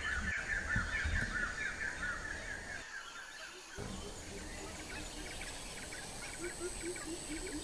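Jungle ambience: birds chattering busily for the first two seconds over a steady high insect whine, with a low call repeated quickly, about four notes a second, starting near the end.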